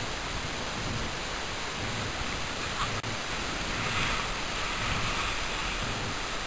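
Steady rushing noise, with the hiss of a snowboard carving through snow swelling about four seconds in as the rider passes close.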